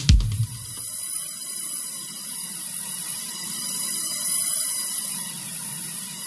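Drumless breakdown in an electronic dance track: the beat stops right at the start, leaving a hissing noise swell that builds toward the middle and eases off, over a faint low drone.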